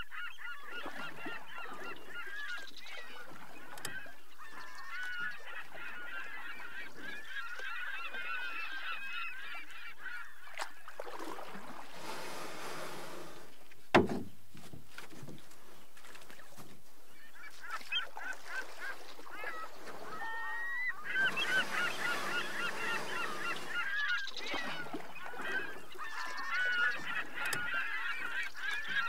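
A flock of birds calling over one another in a dense, continuous chorus, thinning out midway, with a single sharp click about fourteen seconds in.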